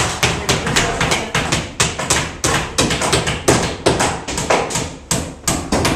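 Hammers driving nails into wood framing: a steady stream of sharp strikes, several a second at an uneven pace and varying loudness, as from more than one person hammering at once.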